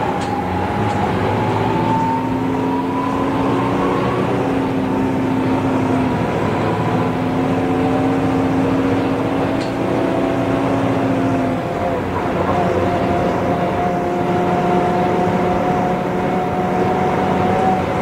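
A 1994 TMC RTS transit bus under way, its Detroit Diesel Series 50 four-cylinder diesel running steadily with a whine from the drivetrain that rises slowly as the bus gathers speed. About twelve seconds in the Allison V-731 automatic transmission changes gear, and the whine then climbs again.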